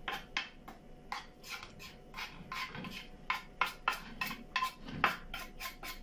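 A metal utensil clinking and scraping against a terracotta dish while stirring a crumbly egg-food mix, in quick irregular strokes of about four a second.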